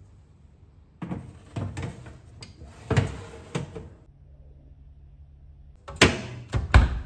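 A metal baking tray is slid onto an oven rack with a run of knocks and clatter. Near the end the oven door is shut with a few sharp bangs.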